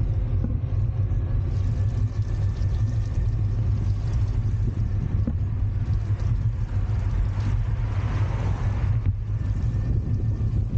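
Steady low wind rumble on the microphone of a camera riding along on an electric mini bike, with tyre hiss on wet pavement.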